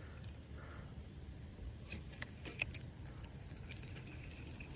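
Insects trilling in a steady, high-pitched chorus, with a few faint clicks about two to three seconds in.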